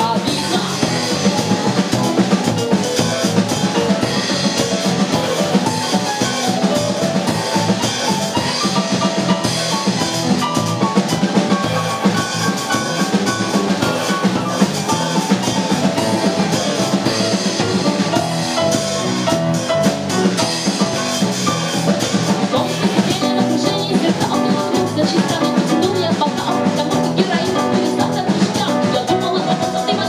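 A live band playing a song steadily with drums, electric bass, keyboard and guitar.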